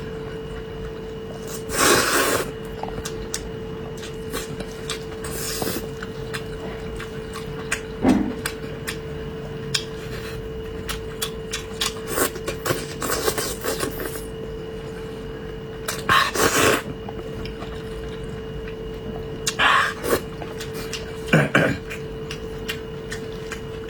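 Eating sounds close to the microphone: intermittent chewing and mouth noises with scattered clicks of utensils against a bowl, over a steady faint electrical hum.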